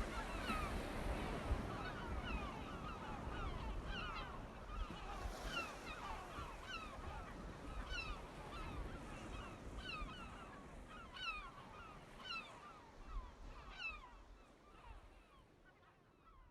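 A flock of gulls calling, many short falling calls overlapping, over the low rumble of surf. The sound fades out over the last few seconds.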